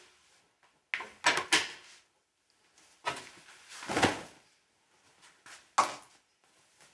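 A few sudden knocks and handling sounds, like household furniture being moved: a quick cluster of three about a second in, a longer swelling rustle around four seconds in, and one sharp knock near the end.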